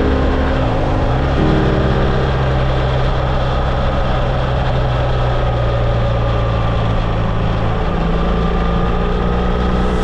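Motorcycle engine running under way at a steady road speed, with heavy wind rush over it. About a second in the engine note sags and then steps back up, and it holds steady after that.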